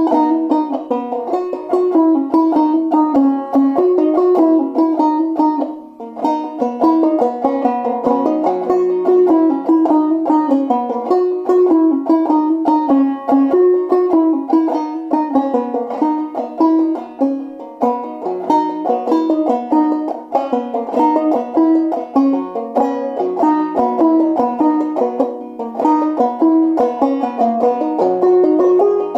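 Five-string banjo played clawhammer style, tuned to about eCGCD, running through a jig with a bouncing jig rhythm in a steady stream of quick plucked notes.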